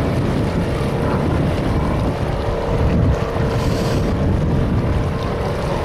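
A small boat's motor running steadily under way, with strong wind rumbling on the microphone.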